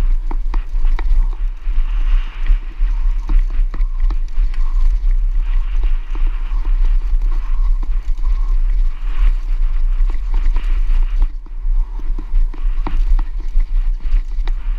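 Mountain bike descending rough ground at speed: a steady wind rumble on the microphone, with a constant rattle of knocks and clicks from the bike over the bumps.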